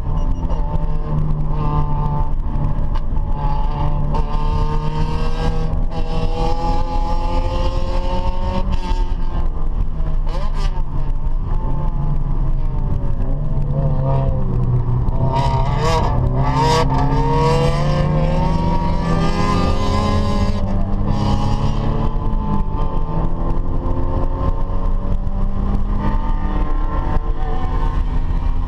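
A car engine running hard, its pitch rising and falling as the revs change, over a steady low rushing noise. About halfway through, the pitch dips and then climbs again.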